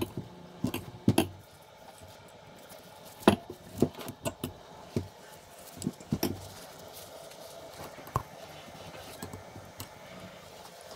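Metal motorcycle fork parts being handled and worked by hand: an irregular run of sharp clicks and knocks, fewest in the last few seconds.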